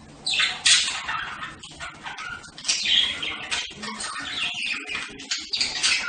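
Several budgerigars (budgies) chattering: rapid, overlapping high-pitched calls in irregular bursts, starting just after the beginning.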